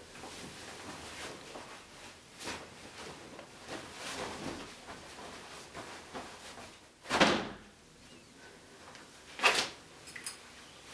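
Clothing rustling as a shirt is pulled off and handled, with two louder swishes of cloth about seven and nine and a half seconds in, and a few light ticks near the end.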